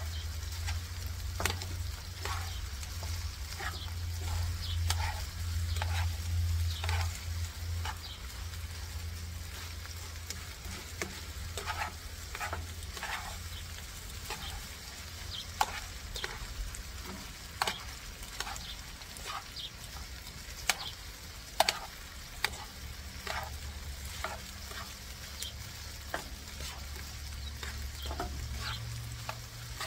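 Chicken tocino frying in a pan, a steady sizzle, with metal tongs clicking and scraping against the pan at irregular moments as the pieces are stirred. A low steady hum runs underneath, stronger in the first several seconds.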